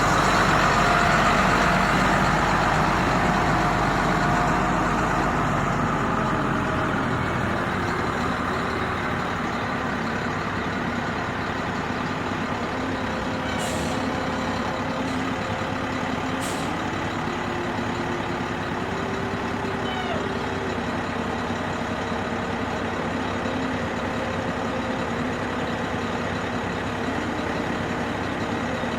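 Heavy diesel engine of an earthmoving machine running, louder in the first few seconds and then settling to a steady run with its pitch drifting. Two short sharp ticks come through at about 14 and 16½ seconds.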